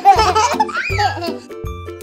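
Cartoon baby voices giggling, dying away after about a second, over children's background music with a steady bass beat.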